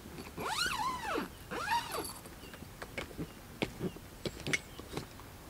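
Two drawn-out animal calls in the first two seconds, each rising then falling in pitch, followed by a string of light clicks and knocks from someone moving on the roof tent's aluminium ladder.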